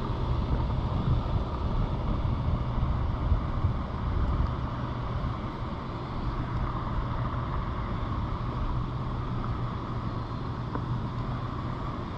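Steady rushing of river water, with a low rumble underneath.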